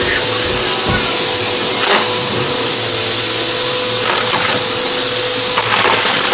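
Vacuum cleaner running steadily with a whine, with a few short crackles as it sucks up something crunchy.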